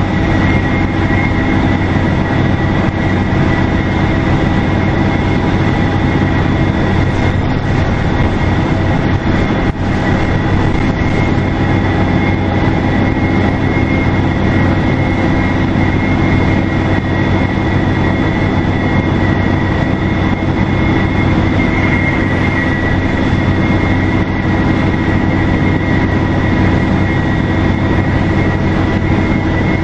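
A 2002 NABI 40LFW transit bus's turbocharged Detroit Diesel Series 50 engine running steadily, with a constant high turbo whistle over the low engine drone and road noise.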